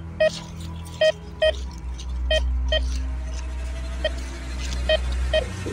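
Metal detector beeping as its search coil is swept over leaf litter: short high beeps, mostly in pairs about half a second apart, repeating with each swing of the coil, signalling a metal target in the ground. A low steady rumble runs underneath.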